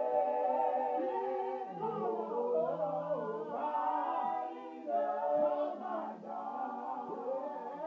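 Small gospel vocal group singing a cappella in close harmony, holding long notes in chords that shift every second or two.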